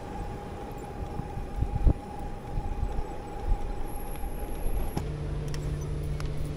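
Electric bicycle riding along a road: a steady rumble of tyres and wind with a thin, steady whine. About five seconds in this changes abruptly to a lower steady hum as the bike is down to walking pace.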